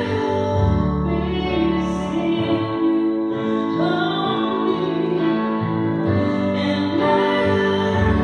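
Music: a worship song sung as a duet over sustained instrumental chords with a moving bass line, a woman's voice singing long held notes.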